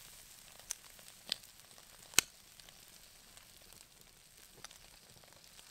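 Faint, steady sizzling of a steak on a hot rock just taken off a campfire, with three sharp clicks in the first two seconds, the loudest about two seconds in.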